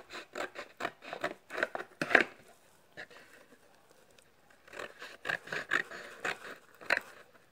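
Scissors snipping through decorated paper glued over a cardboard box: a quick run of short cuts, a pause of about two seconds, then another run of cuts.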